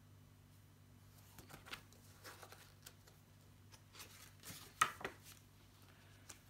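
Pages of a thin softcover picture book rustling and flapping as it is handled and turned over, in scattered soft strokes with one sharper paper slap just before five seconds in. A faint steady hum runs underneath.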